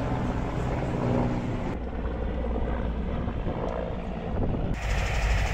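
Helicopter flying overhead, a steady low rotor and engine drone. The sound changes abruptly about two seconds in and again near the end.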